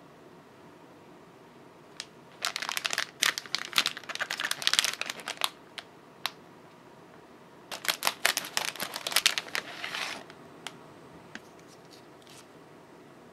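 Thin plastic snack packaging crinkling as it is handled, in two bouts of about three seconds each, then a few light clicks.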